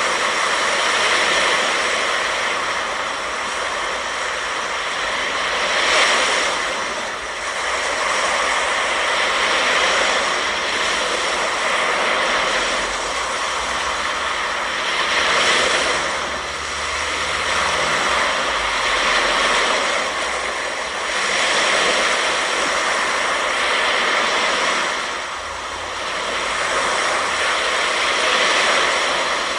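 Ocean surf washing onto the beach, a steady hiss that swells with each breaking wave about every four to five seconds.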